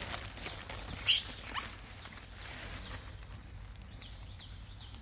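A long-tailed macaque gives one sharp, high-pitched squeal, about half a second long, about a second in. Near the end come several short, high chirps.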